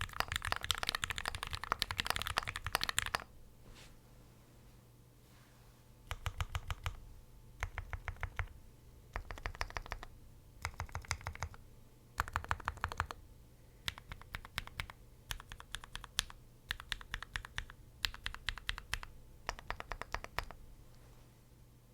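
Typing on a top-mount custom mechanical keyboard with lubed Gateron Black Ink v2 linear switches on an aluminum plate and GMK keycaps. A fast, continuous run of keystrokes stops about three seconds in. After a pause come short quick bursts of strokes, then single keypresses spaced out toward the end.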